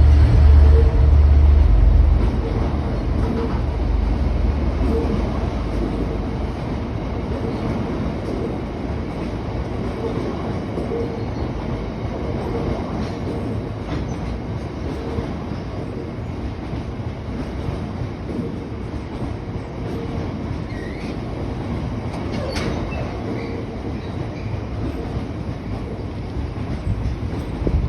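Freight train passing: the locomotive's engine is loud for the first two seconds, then the wagons roll by with a steady rumble and repeated wheel clicks over the rail joints. A brief wheel squeal comes about twenty seconds in.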